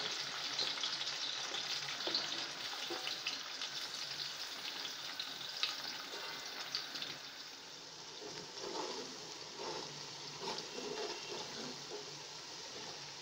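Sliced onions sizzling in hot oil in a large metal pot, a steady hiss that is loudest as they go in and eases off. In the second half, stirring with a steel ladle adds crackle and a few light scrapes and knocks.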